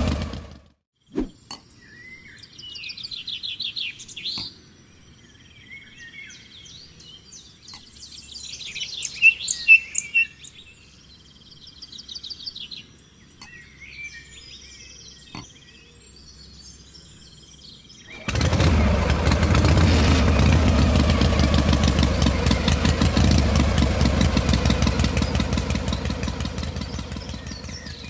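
A small diesel engine cuts off right at the start, leaving birds chirping over a quiet background. About two-thirds of the way in the engine comes back abruptly, running with a rapid putter, and fades toward the end.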